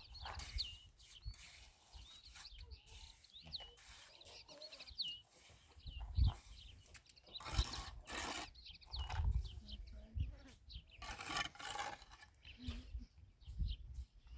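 Small birds chirping over and over in short, high chirps, with irregular rustling and knocking and a low rumble underneath.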